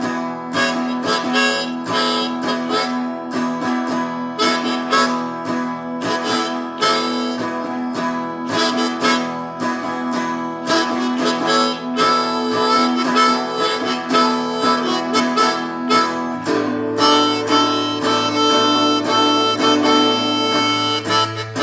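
Instrumental break of a slow blues rock song: blues harmonica playing a solo over guitar and a steady beat. The backing shifts to a new chord about sixteen seconds in.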